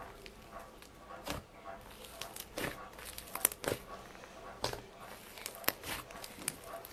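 Hands pressing, poking and stretching a white fluffy slime, giving irregular soft crackles and pops scattered through the handling.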